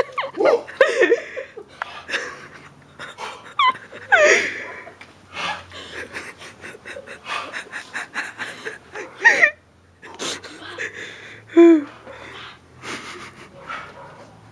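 A man gasping, panting and crying out in short yelps, breaking into laughter, in the cold shock of having just been drenched with a pot of ice water.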